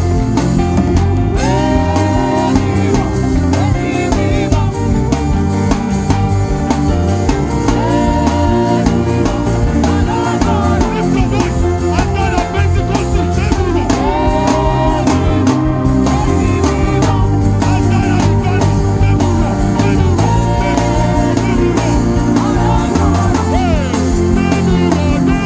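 Live gospel worship music: a band with drums plays a steady groove while a voice sings a melody over it.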